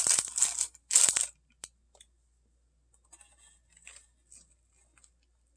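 Clear plastic food container crinkling and scraping as cheese ball is scooped from it with a spoon: a few loud short crackly bursts in about the first second and a half, then faint scattered rustles.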